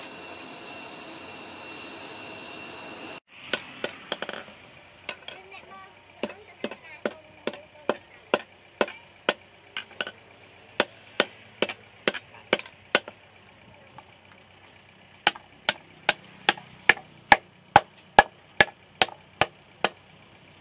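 A forge blower runs steadily with a faint whine under the coal fire and cuts off abruptly about three seconds in. Then a hand hammer strikes red-hot steel of a hoe blade on a steel anvil, about two sharp blows a second, with a short pause before a faster, louder run of blows.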